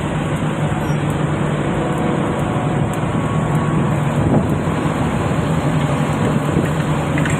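Heavy diesel engine of a crawler-crane piling rig running steadily with a low hum.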